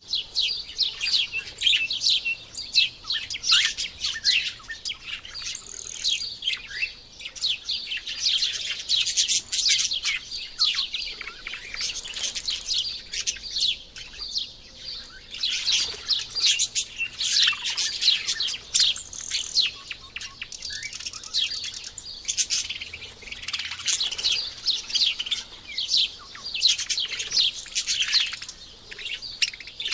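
Birds chirping: a dense, continuous chorus of quick, high, overlapping chirps.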